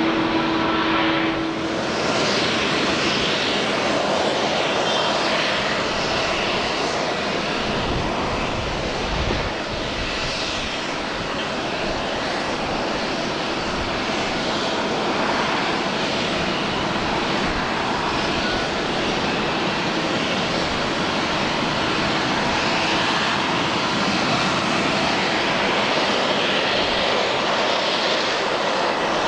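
Airbus A350-900's Rolls-Royce Trent XWB turbofans running, a loud, steady jet roar with a hissing rush.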